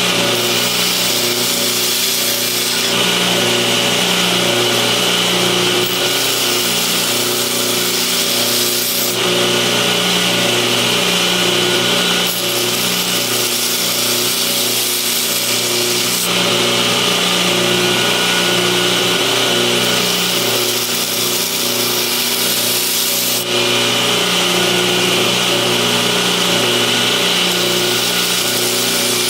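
Belt grinder running steadily while a steel knife blade is pressed flat against the belt to flatten its face. The grinding hiss comes and goes in several passes of a few seconds each over a constant motor hum.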